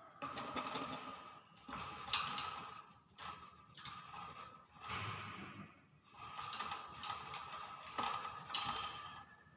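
Hill myna making a string of harsh, rasping, ratchety sounds, about one a second.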